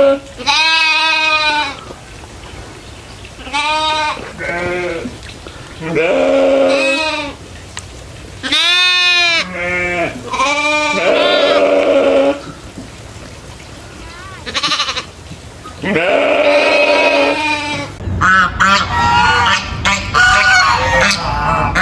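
Goats bleating: a series of separate long, wavering calls, each up to about a second and a half, with pauses between. Near the end a denser run of short geese honks starts.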